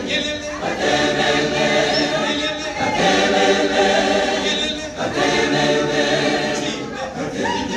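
Church choir singing in several voice parts, in long held chords with a short break about every two seconds.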